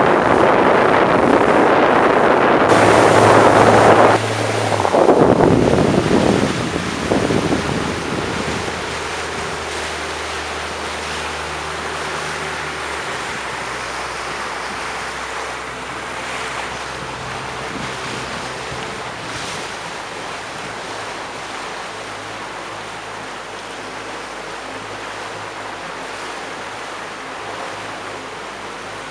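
Speedboat under way: wind on the microphone and rushing water are loud for the first several seconds, then fade as the boat slows. What is left is a steady wash of water with the boat engine's low hum.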